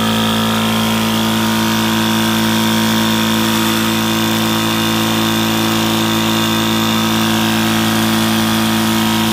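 Water-cooled Tuxing high-pressure PCP air compressor running, pumping air up toward 3,000 PSI with a steady, even hum.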